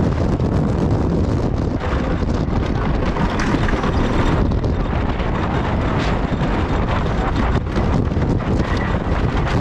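Wooden roller coaster train running at speed: wind rushing over the microphone, mixed with the continuous rattle and clatter of the wheels on the wooden track.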